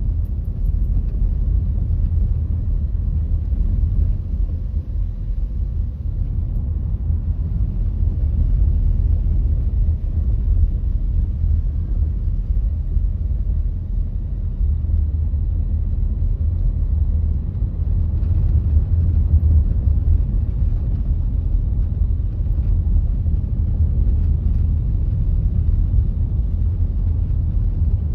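Steady low rumble of a car driving at an even pace: engine and tyre noise on the road, with no sudden events.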